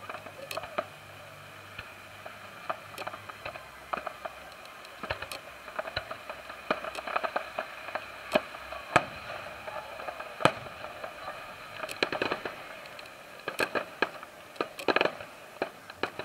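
Fireworks display: aerial shells bursting in an irregular run of sharp bangs and crackles, coming thickest in the last few seconds.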